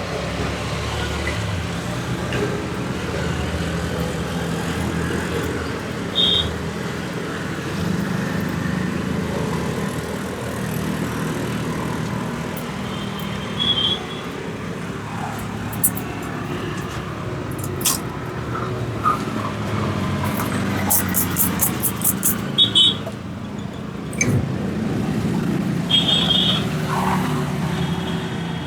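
Steady street traffic rumbling, with a few short high beeps now and then. About two thirds of the way in comes a quick run of about eight sharp strikes, and there are a few single clicks elsewhere.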